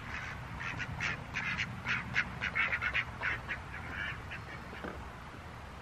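Poultry calling: a rapid run of about a dozen short calls that stops about four seconds in.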